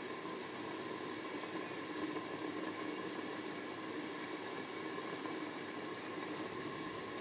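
Steady rushing noise of squid balado cooking in a covered aluminium pan on the stove, with a faint even hum under it.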